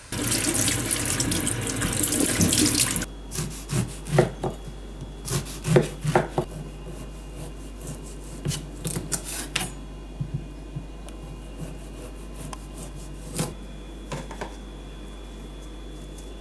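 Liquid pouring in a steady rush for about three seconds, stopping suddenly, followed by a run of scattered clicks and knocks that thin out.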